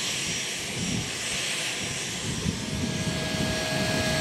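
Steady drone of a skydiving jump plane's engine.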